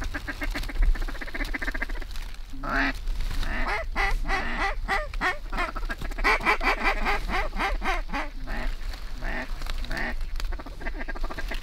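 Mallards quacking and chattering, many calls overlapping, with a fast run of calls in the first two seconds and a dense flurry in the middle. A steady low rumble of wind lies underneath.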